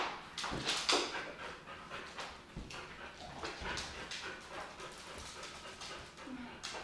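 Boxer dog panting hard during play, with a few sharp taps and knocks in the first second.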